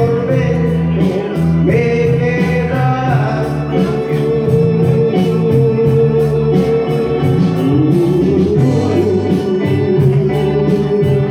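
A song: a singer holds long notes over a stepping bass line and a regular beat.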